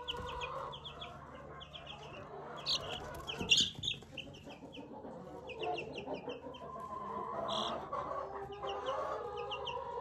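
Half-grown chicks peeping: quick runs of short, high cheeps from several birds at once.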